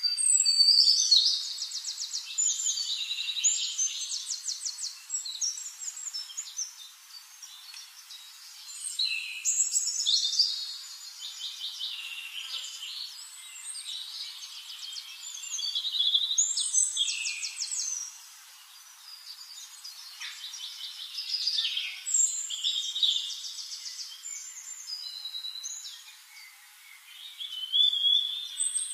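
Small birds chirping and singing, with fast, high-pitched trills that come in repeated loud bouts a few seconds apart.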